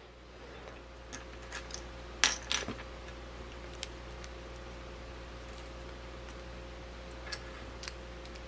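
Small plastic building bricks clicking and clattering as they are picked through and pressed together by hand: scattered sharp clicks, the loudest two close together a little over two seconds in, over a faint steady hum.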